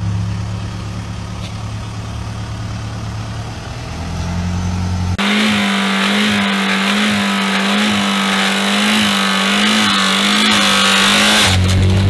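Opel car engine revving hard with the bonnet open. About five seconds in it jumps to a much louder, harsher scream held at high revs with a slight pulsing, as it is run flat out to destruction. Near the end the revs fall away as the engine fails and catches fire.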